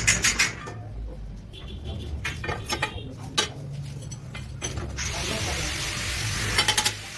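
Metal clinks and knocks as a motorcycle alloy wheel is handled and set into a lathe chuck. A steady hiss comes in about five seconds in.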